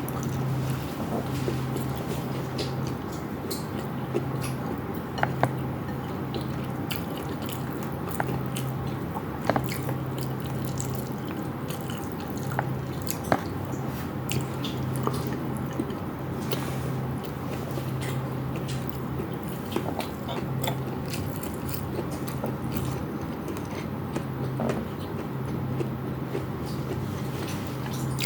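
Close-miked chewing and biting while eating a meal, with many small wet mouth clicks. A low hum runs underneath and comes and goes.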